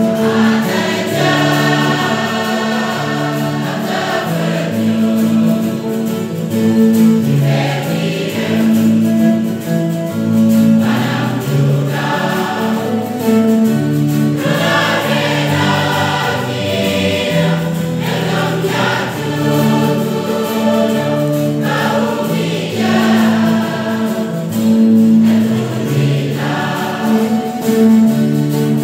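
Large mixed church choir singing a hymn in unison with guitars strumming along.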